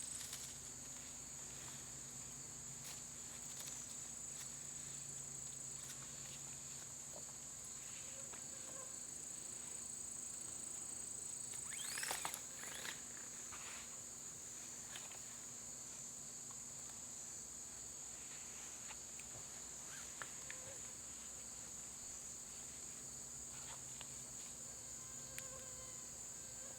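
A steady, high-pitched insect chorus runs on without a break, with scattered faint clicks and rustles of gear being handled and a louder scrape about twelve seconds in.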